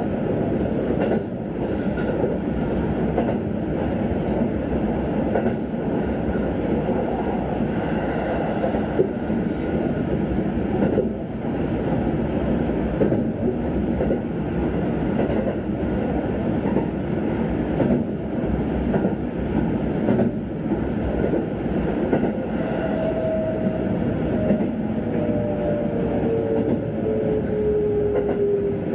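Sanyo Electric Railway train running, heard from inside the car: a steady rumble of wheels on rails with scattered clacks from the rail joints. In the last few seconds a whine joins in and slides slowly down in pitch, typical of an electric train's traction motors as it slows.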